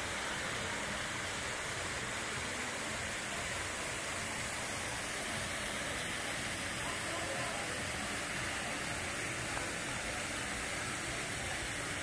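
Steady rush of water spilling down a stone cascade water feature into a swimming pool.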